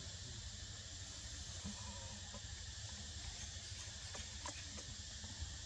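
Steady outdoor ambience: an even, high hiss of insects droning, with a few faint short clicks about four to five seconds in.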